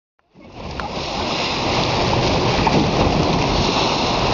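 Sea water rushing and splashing past a moving boat, mixed with wind buffeting the microphone. It is a steady rushing noise that fades in over about the first second.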